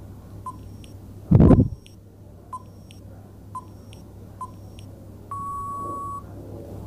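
Quiz countdown-timer sound effect: short beeping ticks about once a second, with one loud low thump about a second and a half in, then a single steady beep just under a second long as the timer runs out.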